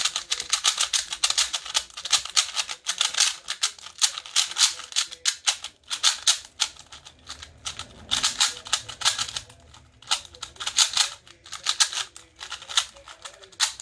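A MoFang MF2S 2x2 stickerless speed cube being turned fast in the hands: rapid plastic clicking and clacking of the layers in quick bursts with brief pauses. The cube is unlubricated straight out of the box and described as super dry.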